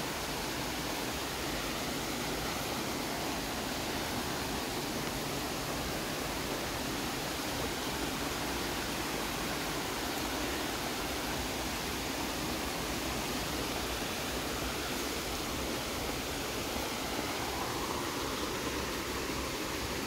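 Soldier Creek cascading over boulders in a small waterfall: a steady, unbroken rush of falling water.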